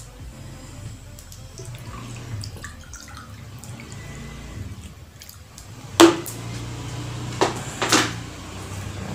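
Drinking water poured from a large plastic bottle into a glass. About six seconds in come three sharp knocks, the first the loudest.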